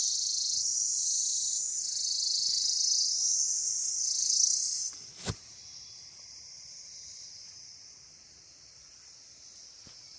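Steady high-pitched insect chorus. It is loud for about the first five seconds, then drops to a much quieter level just before a single sharp click.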